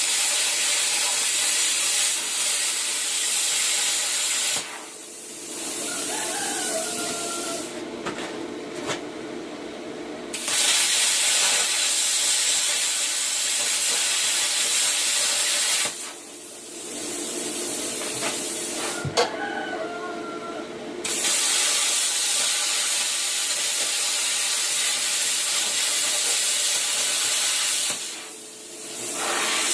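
Cut 50 plasma cutter cutting sheet metal: a loud, steady hiss of the arc and air. It breaks off three times for a few seconds, and a quieter hiss carries on through each break.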